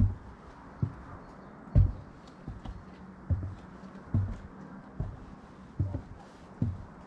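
Footsteps of a person walking at an even pace, a low thud about every 0.8 seconds.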